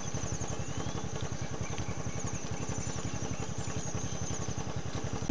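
A small engine idling steadily, an even, rapid low putter with no change in speed.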